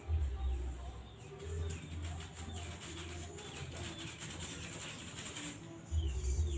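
Small birds chirping in repeated short falling calls, with a dove cooing low. Low rumbling bumps come near the start and again near the end.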